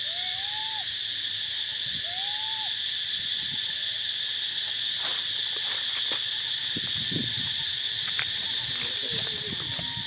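Steady high insect drone, with a baby monkey giving short arched crying calls at the start and about two seconds in. Fainter wavering calls and scattered clicks and rustles follow in the second half.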